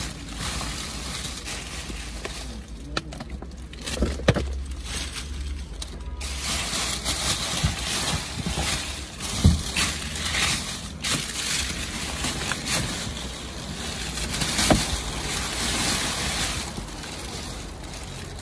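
Plastic bin bags and food packaging rustling and crinkling as hands rummage through a dumpster, with a few dull knocks, the loudest about four, nine and a half and fifteen seconds in.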